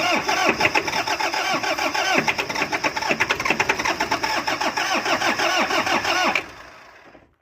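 Truck engine being cranked by its starter motor, turning over in a steady rhythmic pulse without catching, then stopping about six seconds in. The engine fails to start: the fault follows repairs to its engine computer box.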